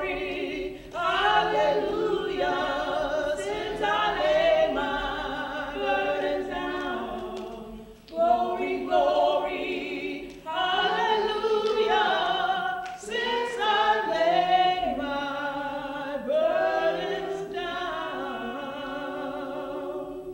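Women's voices singing a hymn unaccompanied, in long wavering phrases broken by a few short pauses.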